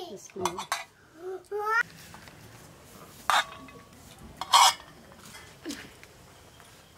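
A child's voice babbling briefly, then two short sharp sounds about a second apart.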